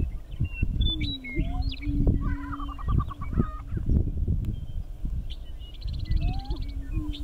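Greater prairie chickens on a lek: males booming in long low hollow hoots, several in turn, mixed with higher cackles, whoops and a rapid chattering run of notes. Low rumbling noise underlies it all.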